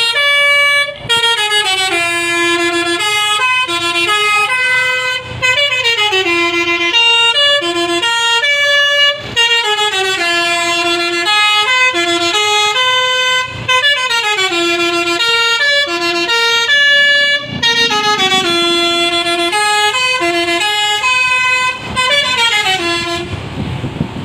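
Basuri multi-tone telolet horn on a tour bus playing its melody: a quick run of stepping horn notes, repeated in about six phrases a few seconds apart. The tune stops about a second before the end, leaving road rumble.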